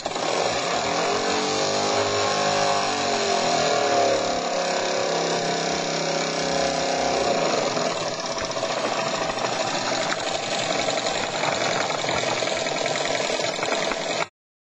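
Jensen 25 toy steam engine running at speed: a steady mechanical whir with a hiss. A pitched tone rises and falls about two to four seconds in, and the sound cuts off suddenly near the end.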